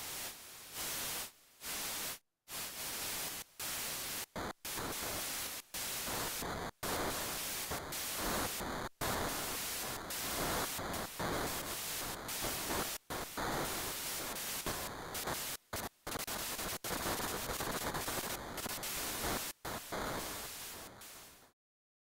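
Static-like white-noise hiss from a Eurorack modular synthesizer, cutting out to silence in short, irregular gaps every second or so, then fading out near the end.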